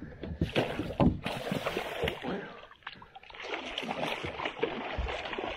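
Water splashing and sloshing at the boat's side as a hooked walleye thrashes at the surface and is scooped into a landing net, with a few sharp knocks in the first second.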